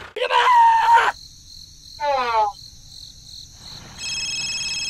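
Edited-in sound effects: a short, loud pitched sound near the start, a quick falling glide about two seconds in, then a steady high cricket chirring from about four seconds in.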